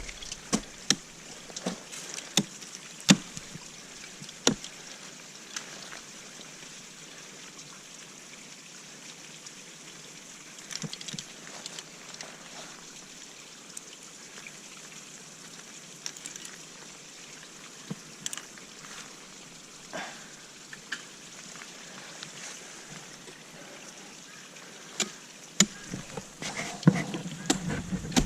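Sharp knocks of ice tools and crampons striking waterfall ice, several in the first few seconds and a louder cluster near the end, over a steady hiss of trickling water.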